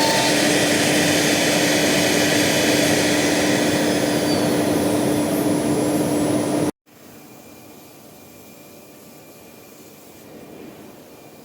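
CNC router spindle cutting 18 mm vermiculite board: a loud, steady hissing cut over a steady hum. About two-thirds of the way through it cuts off abruptly, and a much quieter steady noise follows.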